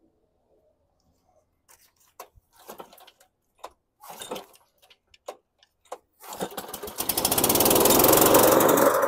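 Scotts by John Deere walk-behind lawn mower's small engine being cranked with a weak recoil starter: a few short scattered rattles and pops, then about six seconds in it catches and runs loud and fast.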